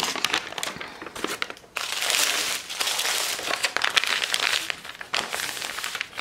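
A folded printed paper sheet being opened out and flattened by hand, crinkling and rustling; a few light crackles at first, then a loud, continuous crinkling for about three seconds before it eases off.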